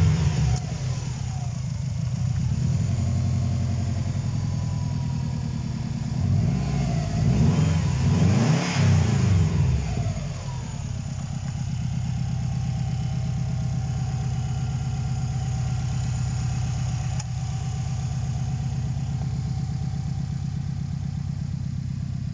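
Subaru EJ205 2.0-litre turbocharged flat-four in a 2009 Forester, idling with the bonnet open. It drops back from a rev at the start, is blipped several times in quick succession near the middle, then settles to a steady idle.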